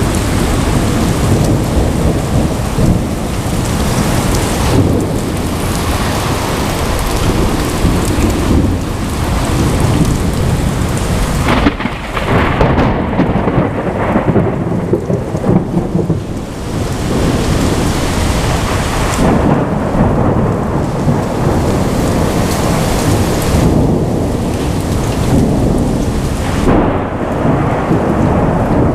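Heavy rain pouring down while thunder rumbles on and on through a thunderstorm, with a sharper crack near the middle.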